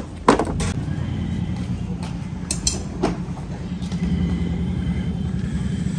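Steady low drone of a motor vehicle engine running close by. A few sharp clicks and knocks sound right at the start and again around the middle.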